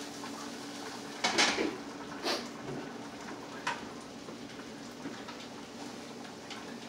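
Metal pots and pans being handled on an electric stove: a loud clatter about a second in, then lighter knocks twice more and a few faint ticks, over a steady faint hiss.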